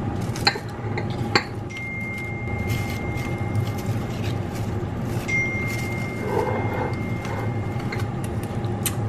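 Nori sheets being handled and tucked into ceramic bowls, with two light clicks in the first second and a half, over a steady kitchen hum. A thin high whistle-like tone sounds twice, for about a second and then for about three seconds.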